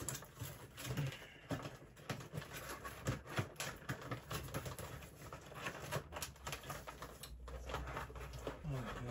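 Irregular rustling, scraping and short clicks of a cardboard toy box being handled and worked open by hand.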